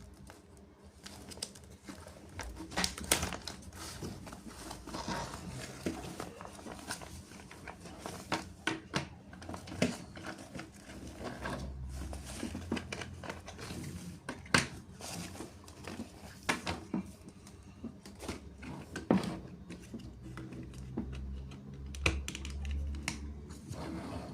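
Plastic packaging crinkling and hard plastic toy parts clicking and tapping as toy construction vehicles are unboxed and handled, with irregular clicks throughout and a low rumble twice near the middle and the end.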